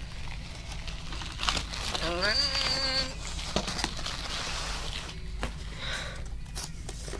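Packaging being handled and pulled at, with scattered knocks and rustles. About two seconds in comes one brief rising, pitched squeal, and a sharp knock lands at the very end.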